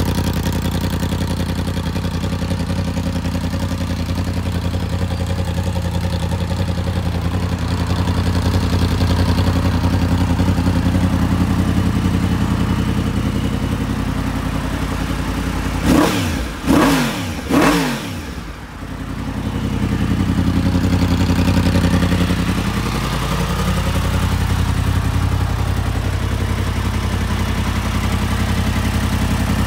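Yamaha MT-10 SP's crossplane inline-four idling through its Yoshimura Alpha exhaust. About halfway through, the throttle is blipped three times in quick succession, each rev rising and falling back to idle.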